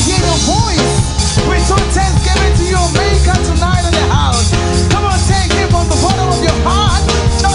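Loud, up-tempo live gospel praise-break music: a fast drum kit driving a band, with pitched runs that bend up and down over it.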